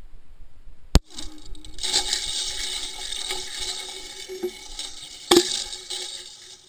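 A sharp crack as the SQUID experiment's free-flying unit is spring-ejected, followed by a steady hiss with a faint hum and a second sharp knock about four seconds later as the wire booms start to deploy. The sound cuts off suddenly near the end.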